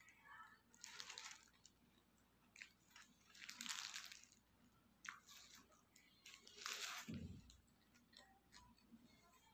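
Faint eating sounds of a burger being bitten and chewed, with crunching and crinkling of its paper wrapper in several short bursts. A soft low thump comes about seven seconds in.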